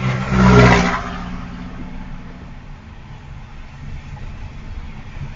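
Car on the move: a louder rushing swell for about half a second near the start, then steady low engine and road noise.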